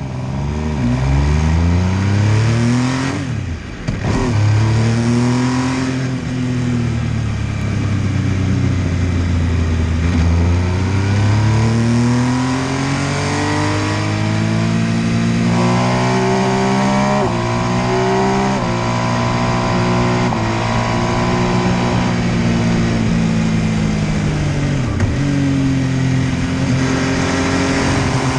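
MV Agusta F3 800's three-cylinder engine ridden hard: the revs climb and fall again and again as the bike accelerates, shifts and slows. About three seconds in the pitch rises then drops sharply, and it changes again near the middle and near the end.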